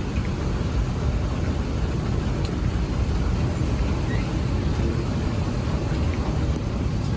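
Steady low rumble of a moving vehicle, even throughout, with a few faint ticks.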